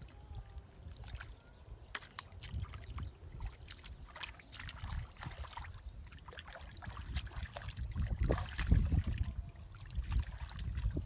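Hands sloshing and splashing in shallow muddy water while groping for fish, in irregular small splashes that grow busier and louder about three-quarters of the way through.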